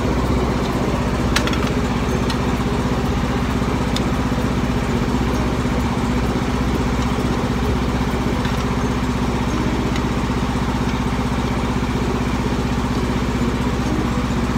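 Truck's generator running with a steady low drone, so noisy close by, with a couple of light clicks about a second and a half and four seconds in.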